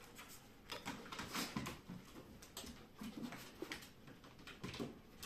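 Paws and claws scrabbling and knocking on a treadmill deck and wooden floor as a red fox and a wolf-like dog scuffle, in scattered light knocks with a few short low animal sounds.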